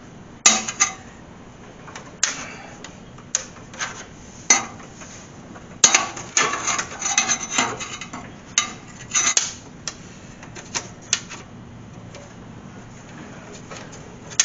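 Irregular metallic clinks, taps and knocks from hand work on metal parts, as tools and steel lines are handled. The clatter is busiest in the middle and stops a few seconds before the end.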